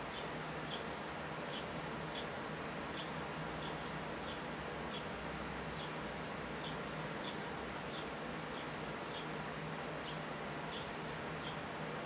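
Sparrows chirping: short, high chirps repeated about once or twice a second, over a steady hiss with a faint low hum.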